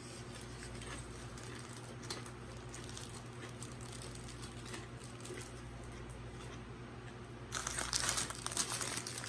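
Paper sandwich wrapper crinkling as it is picked up and handled, starting about seven and a half seconds in. Before that only a steady low hum and faint ticks of chewing.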